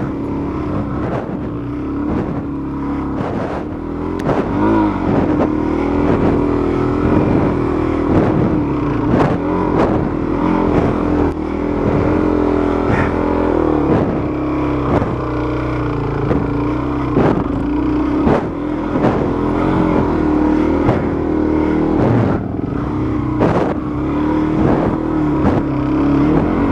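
Dual-sport motorcycle engine running on a muddy trail, its note rising and falling slightly with the throttle, with frequent short knocks heard over it.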